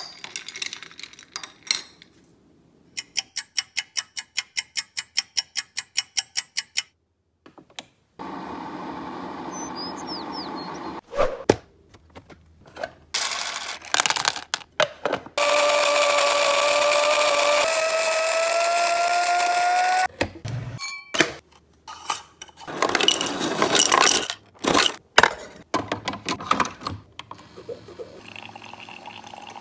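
A series of short kitchen sounds from making iced coffee with a single-serve coffee maker. A quick run of about seventeen clicks is followed by several bursts of rushing noise and a loud steady rush lasting a few seconds, with a tone rising through it. It ends in the coffee maker's faint hum.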